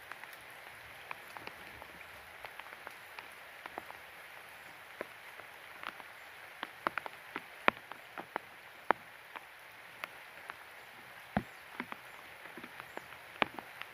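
Steady heavy rain falling on creek water, an even hiss with sharp ticks of single drops landing close by at irregular moments.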